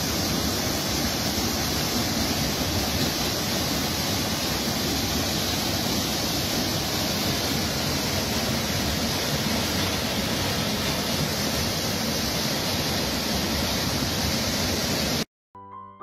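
Small waterfall pouring down a narrow rock gorge into a pool: a steady rush of falling water that cuts off abruptly about a second before the end, where soft piano music begins.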